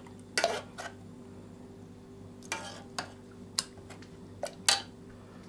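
A utensil knocking and scraping against a pot while potatoes are mashed with milk: about seven or eight sharp, irregular knocks, over a faint steady low hum.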